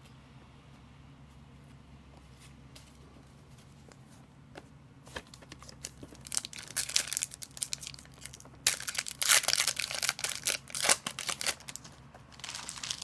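Foil wrapper of a hockey card pack being torn open and crinkled in the hands, in irregular crackling bursts. The bursts start about five seconds in and are loudest around the ten-second mark; before that only a faint low hum is heard.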